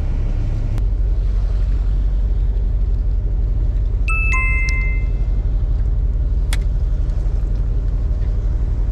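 Steady low rumble of a fishing boat's idling engine. A little past the middle, a two-note descending chime sound effect rings once. There are two sharp clicks, one early and one later.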